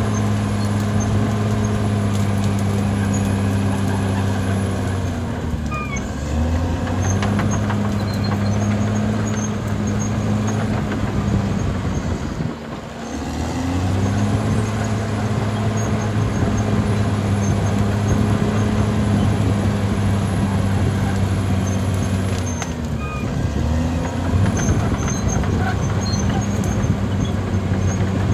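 Caterpillar D6R XL bulldozer's diesel engine running steadily under load. Its note drops and picks back up three times, once sharply with a brief dip in level about halfway through.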